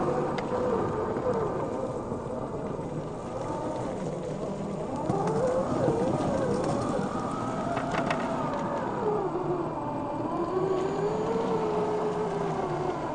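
A 1/10-scale RC rock crawler on a Vanquish VS4-10 chassis crawling over gravel. Its electric motor and geared drivetrain whine, rising and falling in pitch with the throttle, over the crunch of tyres on loose stones, with a sharp click about two-thirds of the way in.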